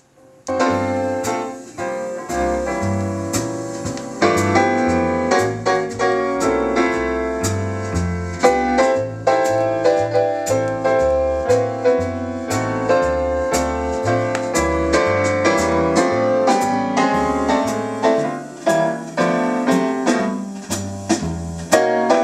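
Recorded music played from a vinyl record through the Audio Research SP6 preamplifier's phono stage: a piano-led piece with a moving bass line and drum hits, starting after a brief gap.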